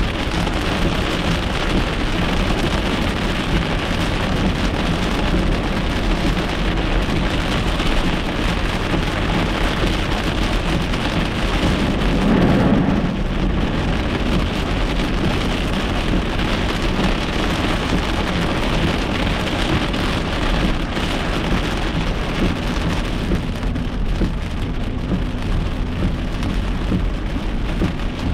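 Heavy rain falling hard on a car's windshield and roof, heard from inside the moving car in a severe thunderstorm, as a steady dense hiss. A louder low rumble swells about twelve seconds in.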